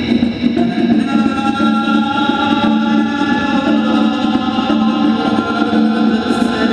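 A live band playing loud music, with long held notes sounding over a steady, dense wash of sound.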